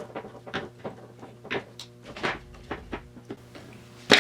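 Metal parts and hand tools clicking and knocking irregularly on an overdrive unit being dismantled, about a dozen light knocks, then one loud metallic clank near the end.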